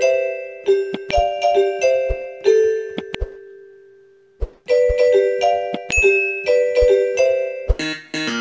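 Background music: a light melody with a clicking beat. It hangs on one fading note and drops out briefly midway, then starts again, and changes to a different tune near the end.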